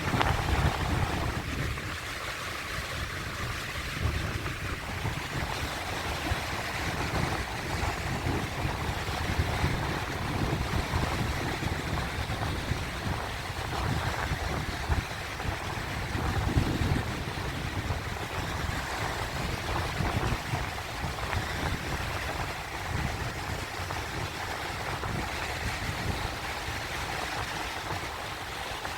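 Sea waves washing and breaking, a continuous rushing of water with a low rumble that swells and eases in gentle surges.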